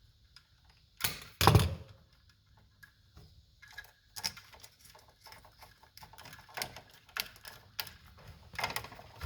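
Hands handling a dimmer switch and its wires: scattered small clicks and light taps, with two louder knocks just after a second in.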